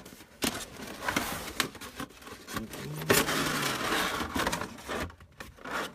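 Cardboard box and clear plastic clamshell packaging scraping and rustling as the clamshell is slid out of the box by hand, with scattered clicks and taps. The rustle is densest about halfway through.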